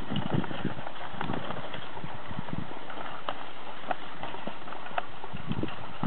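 Irregular soft thuds of footfalls on freshly ploughed soil, from a pair of shire horses drawing a horse-drawn plough and people walking behind it, with a few sharp clicks.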